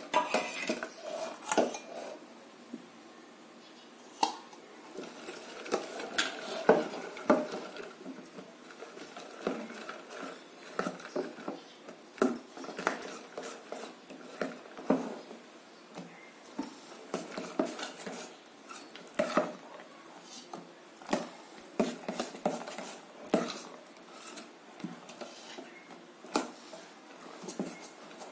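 A metal spoon stirring in a stainless steel pot of jaggery syrup and coconut pieces, clinking and scraping against the sides in many irregular knocks.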